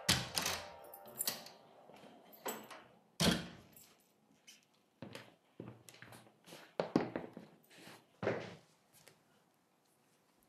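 A wooden door being handled: a string of sharp clicks and thuds, with knocks about three seconds in and again around seven and eight seconds in.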